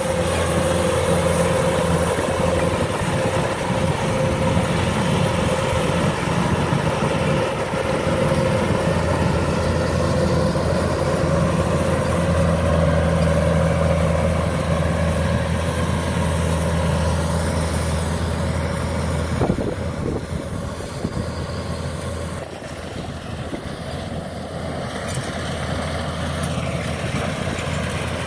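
Kubota DC-105X combine harvester's diesel engine running steadily under load while it cuts and threshes rice. The sound is a continuous mechanical drone, and it drops back a little about two-thirds of the way in.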